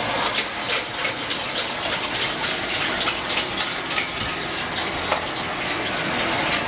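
High-flame Thai gas wok burner running with a steady rushing noise, while a bamboo wok brush scrapes and knocks against the steel wok in quick, irregular strokes for the first four seconds or so.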